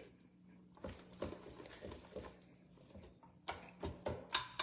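Wire whisk tapping and scraping against a stainless steel pot as whipped topping is mixed into thick pudding: faint, irregular taps, the sharpest a few near the end.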